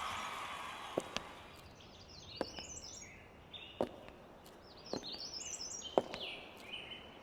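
A small songbird singing two phrases of quick, high, stepped notes, with sharp ticks about every second. Music and voices fade out in the first second or so.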